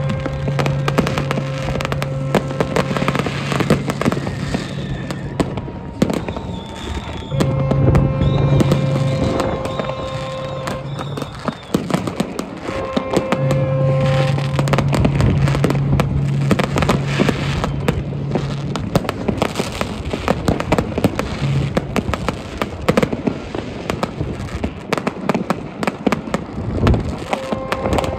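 Crowd New Year's Eve fireworks: a near-continuous barrage of bangs and crackling from rockets, firework batteries and firecrackers. Long steady low tones sound three times over it.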